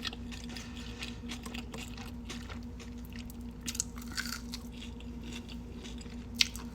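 A person chewing food close to the microphone, with irregular small wet clicks and crunches and one sharper click near the end. A faint steady hum runs underneath.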